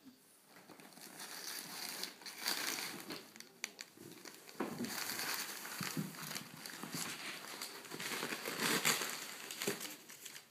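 Crumpled brown packing paper crinkling and rustling as a cat rummages through it in a cardboard delivery box. The rustling comes in waves, with louder bursts a couple of seconds in and again near the end.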